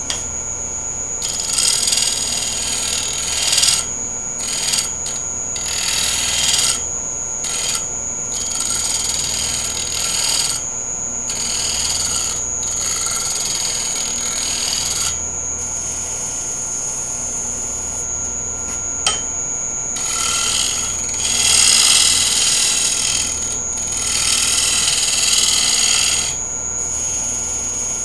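Wood lathe running with a steady high-pitched whine and a low hum, while a bowl gouge shear-cuts the outside of the spinning wooden bowl in repeated passes, each heard as a hiss of the tool edge on the wood lasting a second or a few seconds.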